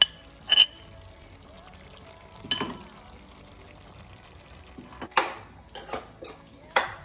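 A cooking utensil knocking and scraping against a frying pan as chicken pieces with crushed garlic and ginger are stirred, over a low steady sizzle. Single clinks about half a second and two and a half seconds in, then several quick clinks near the end.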